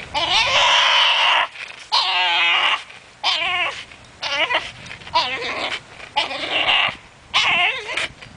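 French bulldog whining and squealing in short strained bursts, about one a second, while hanging by its teeth from a rope toy and tugging.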